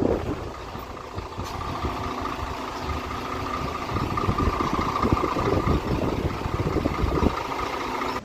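An engine running steadily under a low, fluctuating rumble, with a steady high whine from about two seconds in.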